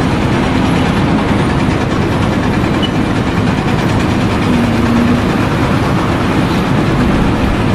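Heavy machinery engine running steadily, a loud, even mechanical rumble with a faint hum.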